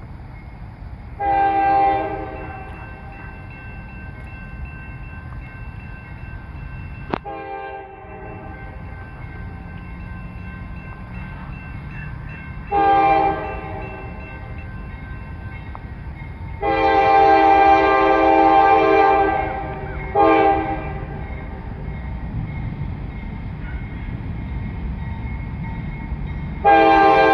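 CSX diesel locomotive's multi-chime air horn sounding five blasts: two single short ones, then a long blast, a short one and another long one starting near the end, the crossing warning as the train approaches a road crossing. The locomotive's diesel engines run underneath as a low rumble that grows as the train comes closer and picks up speed.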